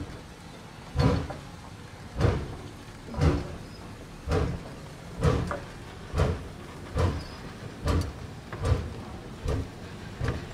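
4-4-0 steam locomotive, a replica of a Civil War-era engine, working at low speed. Its exhaust chuffs about once a second and gradually quickens as the train gathers pace.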